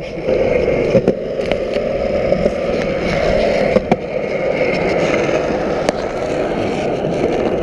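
BMX bike rolling over a concrete skatepark: a steady rush of tyre noise with scattered clicks and rattles from the bike.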